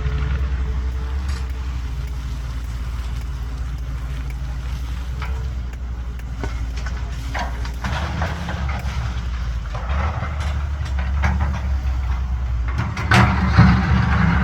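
Caterpillar 320BL excavator's diesel engine running steadily with a deep rumble, with scattered metal clanks and knocks and a louder burst of rattling clatter near the end.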